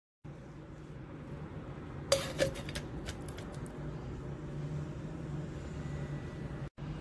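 Kitchen cookware clinking: one sharp clack about two seconds in, a second soon after, then a quick run of lighter clicks, over a steady low hum.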